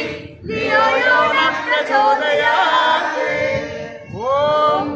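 A group of voices, children among them, singing a Hindu devotional bhajan together, unaccompanied. About four seconds in, the voices swoop up in pitch into a new phrase.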